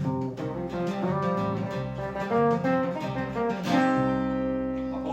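Acoustic guitar playing the song's closing instrumental. About three-quarters of the way in, a final chord is struck and left ringing.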